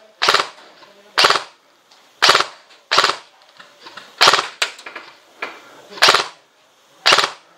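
Airsoft electric gun firing about eight sharp, loud shots or very short bursts, roughly one a second at uneven intervals.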